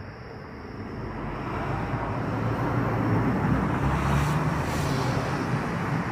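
A vehicle passing by: its engine rumble swells over the first few seconds, peaks about halfway through, then fades near the end.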